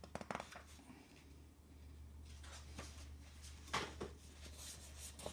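Soft handling of a picture book: a few quiet paper rustles and light taps as pages are turned, over a faint steady low hum.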